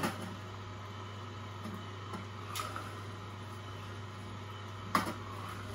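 Angel twin-gear stainless-steel slow juicer running with a steady low hum as fruit is pressed down its feed chute with a wooden plunger. There is a faint click about two and a half seconds in and a sharper knock about five seconds in.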